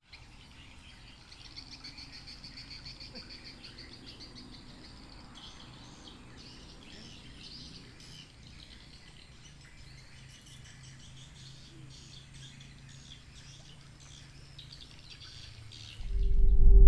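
Outdoor ambience of birds chirping and insects trilling, with a steady low hum underneath. Loud music starts abruptly near the end.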